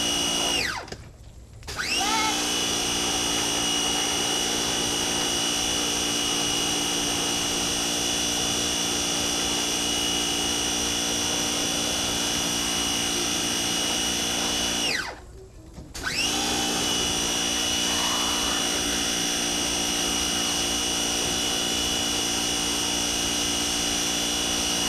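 Pressure washer running with a steady motor whine; twice it winds down and stops, about a second in and again about 15 seconds in, then starts up again a second later.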